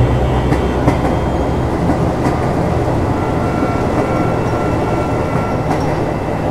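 Subway train running on rails: a steady low rumble and hum, with scattered clicks of the wheels over rail joints. A thin steady whine comes in for a couple of seconds in the middle.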